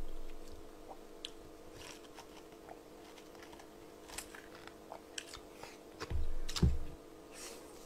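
Close-miked mouth sounds of eating and drinking: small wet clicks and smacks as broth is sipped from a bowl. A dull thump about six seconds in.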